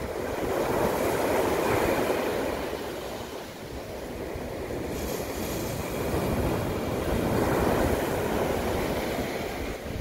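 Sea waves breaking and washing up onto a coarse sand beach. The surf swells about a second in and again around seven to eight seconds, easing off in between.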